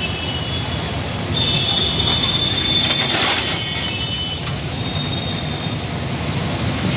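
Motor vehicle engines and street noise running steadily, with a high-pitched squeal lasting about two seconds near the middle.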